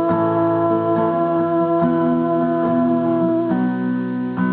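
Instrumental passage of a song with no singing: guitar with steady held chords, changing chord about three and a half seconds in and again near the end.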